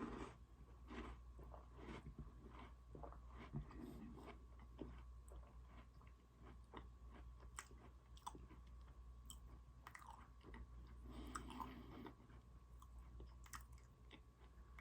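A person quietly chewing and biting Oreo, with soft irregular crunches and mouth clicks.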